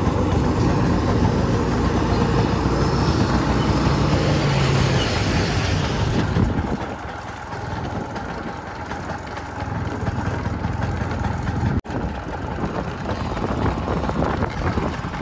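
Wind noise on the microphone and tyre rumble from a scooter riding over a rough dirt road, with a truck running ahead early on. The noise is louder for roughly the first six seconds, then eases.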